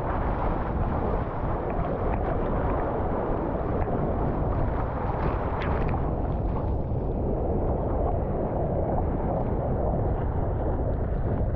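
Steady wind rumble on the microphone, mixed with the wash of the sea.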